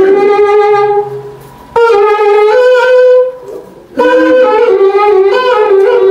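A wind instrument played loudly in phrases of held notes that step between a few pitches, breaking off twice for a moment.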